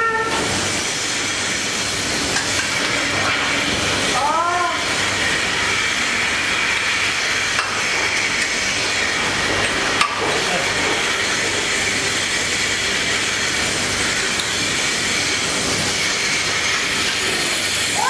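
Milking-shed machinery running: a steady hiss and drone from the milking plant, with a faint high whine over it. A short call cuts through about four seconds in.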